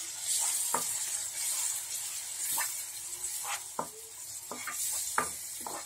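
Onion masala sizzling in hot oil in a non-stick frying pan as tomato sauce is poured in. A steady high hiss, with about seven short scrapes and knocks against the pan.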